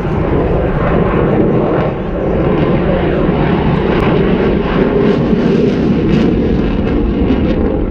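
Single-engine F-16 fighter jet flying a display pass: loud, steady jet engine noise, deep and rushing, dipping slightly about two seconds in.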